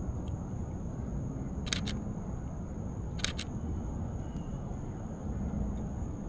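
Canon EOS RP camera shutter firing twice, each release a quick pair of clicks, about a second and a half apart. A steady low rumble runs underneath.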